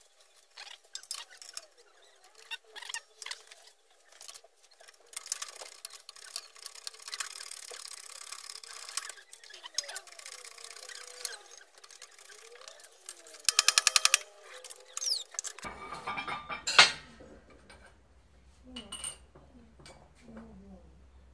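Hand-pumped hydraulic shop press and steel parts clinking as a bearing race is pressed into an aluminium Suzuki Carry front differential housing through a stack of drivers: scattered metal clicks and knocks, a quick run of about a dozen clicks about two thirds in, then one sharp loud clink.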